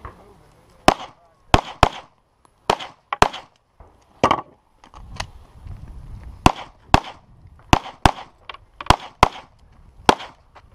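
Pistol fired in a string of about a dozen sharp shots, mostly in quick pairs about half a second apart with short pauses between the pairs.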